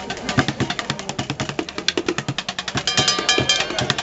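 Fast street drumming on buckets: a rapid run of sharp strikes with deeper thuds mixed in. About three seconds in, a high ringing tone sounds over the beat for about half a second.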